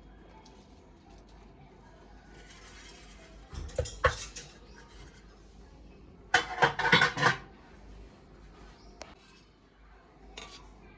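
Kitchen utensils and dishes clinking and clattering in short bursts: a brief clatter about four seconds in, a louder run of quick knocks and clinks about halfway through, then a couple of single clicks.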